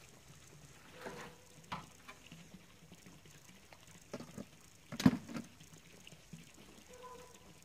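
Dry dead leaves rustling as they are gathered and dropped into a wheelbarrow, with scattered knocks from a garden tool. A sharp knock about five seconds in is the loudest.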